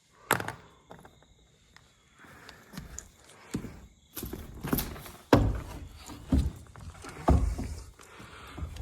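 Scattered thumps and knocks with scuffing as a person climbs up into a barn loft, the heaviest thumps coming in the second half.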